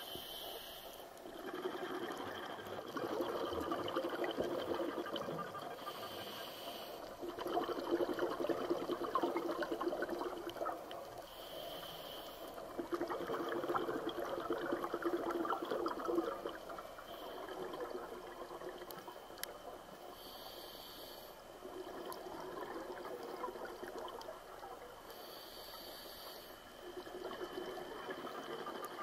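Scuba diver breathing through a regulator underwater. A short hissing inhalation is followed each time by several seconds of bubbling exhalation, about five breaths in all, roughly every five to six seconds.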